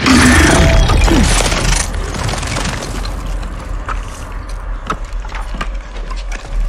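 Movie monster sound effects: a sudden loud roar, then continuing chittering with many sharp clicks.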